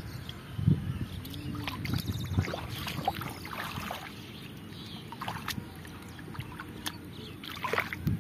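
Hands and bare feet stirring and sloshing in a shallow pool of muddy water, with irregular small splashes and wet clicks as the water is groped through for fish.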